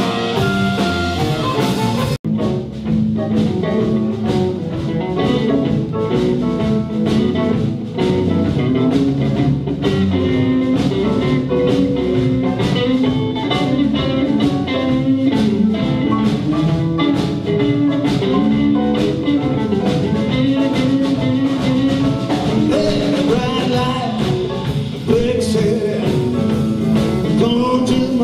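A live blues band playing, with guitar, bass and drums. About two seconds in, the sound cuts out for an instant and picks up again mid-song.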